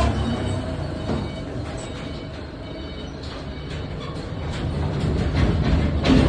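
Heavy machinery running with a low, steady rumble, broken by scattered knocks and clanks, the loudest near the end.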